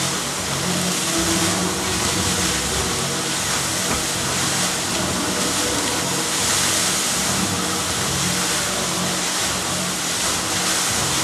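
Fountain jets spraying and water splashing back into the basin, a steady rushing hiss, with low tones running underneath.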